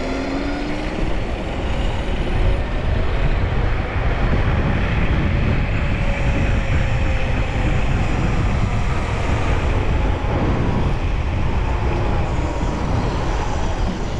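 Wind rushing over an action camera's microphone while riding an electric board or scooter at speed, with a steady low rumble and a faint electric motor whine that slides up and down in pitch.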